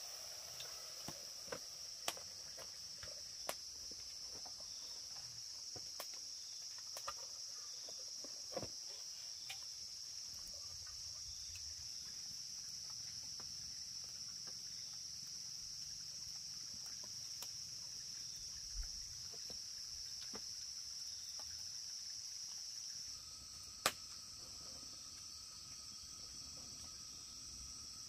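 Steady, high-pitched chorus of insects, with scattered light clicks and one sharper click near the end.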